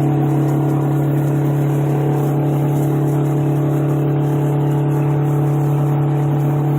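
Straight-piped 8V71 two-stroke V8 Detroit Diesel in a 1980 GMC General semi truck, running at a steady engine speed with an even, unchanging drone.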